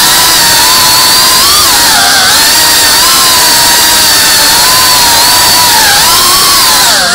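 Tiny whoop FPV drone's small motors whining under a heavy hiss, the pitch wavering with the throttle and dropping sharply for a moment near the end before climbing again.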